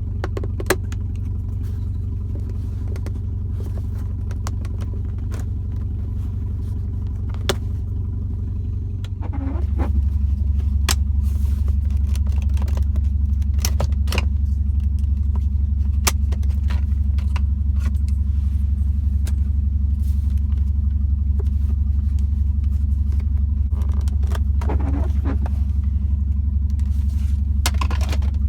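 Scattered clicks and knocks of plastic trim and small metal parts being handled as a BMW E46's centre console is worked loose, over a steady low hum that becomes louder about nine seconds in.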